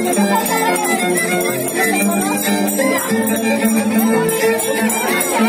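Live Andean chimaycha music: plucked strings and violin playing with voices singing over them.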